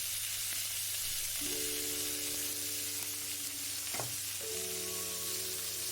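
Green beans frying in olive oil in a pan, a steady sizzle. From about a second and a half in, a few long held notes of background music sound over it.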